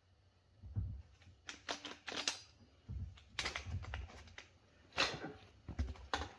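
Handling noise: a run of irregular light clicks and knocks, like tools and parts being picked up and moved about.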